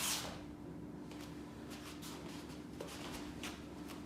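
A steady low hum with a few short, soft swishes, the clearest right at the start.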